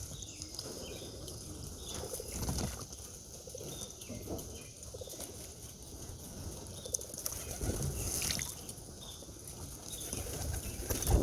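Young racing pigeons flapping their wings in irregular bursts, with a louder burst near the end.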